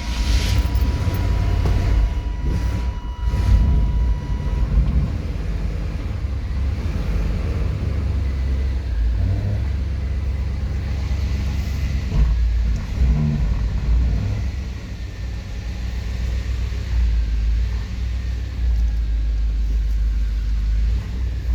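1993 GMC Yukon's V8 engine catching and running as a loud, uneven rumble that surges and sags: a hard, rough start on stale fuel after sitting all winter.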